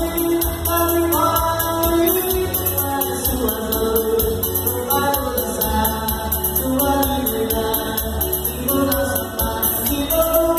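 Live electronic keyboard music, amplified through a PA: held melody notes over a steady bass line and a fast, even drum-machine beat.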